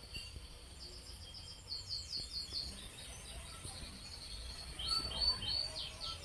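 A small bird chirping in the background: a quick run of short, high, falling chirps, then three brief level notes and more falling chirps near the end. A faint low hum runs underneath.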